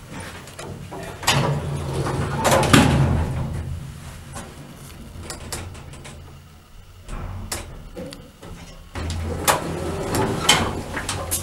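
Automatic sliding elevator doors rumbling shut about a second in, then a quieter stretch while the car travels, and the doors sliding open again about nine seconds in.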